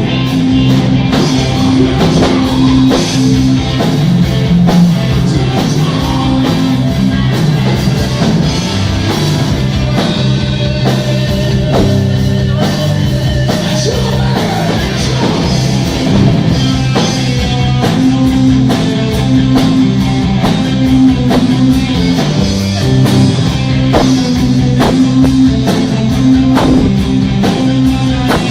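Rock music with distorted electric guitar, bass and a steady drum-kit beat, with some singing.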